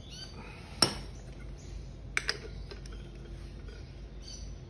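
Metal tool clinks as a socket and vice grips are fitted to tighten the nut on a lawnmower's recoil-starter centre bolt: one sharp clink about a second in, a quick double clink near the middle, and a few lighter ticks.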